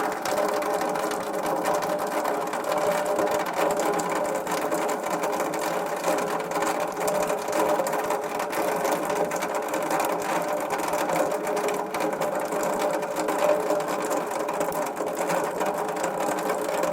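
Water running and dribbling down a metal gutter pipe: a dense, steady, rapid patter of drips.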